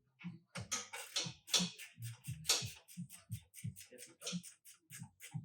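Background music with a steady beat: repeated low thumps and crisp high hits, a few per second.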